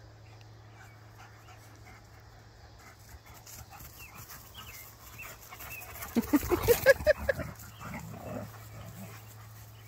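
Dog giving a quick run of short, rising yips and whines while playing, about six seconds in, after a quiet start.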